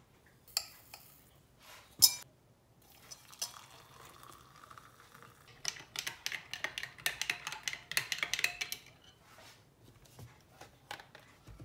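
A teaspoon and glass clinking, with one sharp clink about two seconds in. Then water is poured into a glass of instant coffee granules, and a teaspoon stirs the coffee in a fast run of clinks against the glass.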